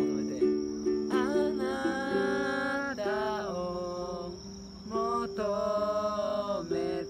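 Unaccompanied-style live worship singing: a voice sings a slow melody over a plucked string instrument, with a steady high trill of crickets underneath.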